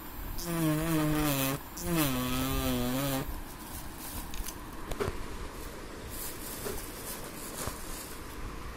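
Battery-powered engraving pen buzzing in two bursts of about a second each as its vibrating tip scratches marks into black paper, its pitch wavering slightly under the load. After that the buzz stops and only a couple of faint clicks remain.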